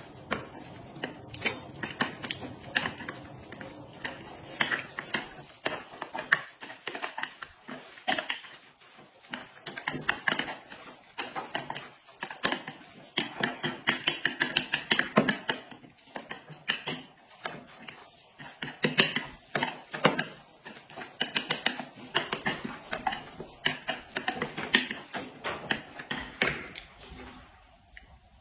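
People eating noodles with chopsticks: a dense, irregular run of quick chewing, slurping and mouth clicks, thickest in two stretches in the middle.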